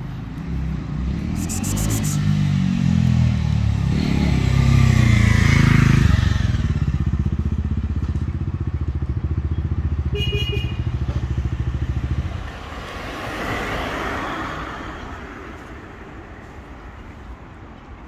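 A motor vehicle's engine running close by. Its pitch climbs over the first few seconds, then holds steady before cutting off abruptly about twelve seconds in. A fainter passing-vehicle whoosh rises and falls shortly after.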